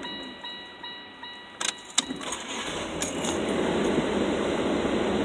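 Car keys jangling and clicking in the ignition as the key is turned off and back on, with a steady electronic chime tone in the first second and a half. After about two seconds a steady running hum comes up and holds.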